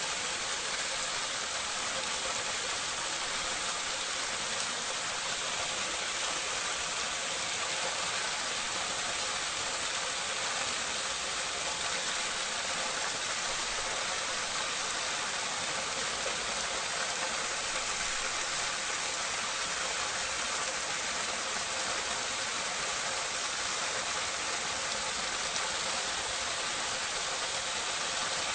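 Water pouring steadily into a drain, heard close up: a continuous even rush and splash with no pauses or changes.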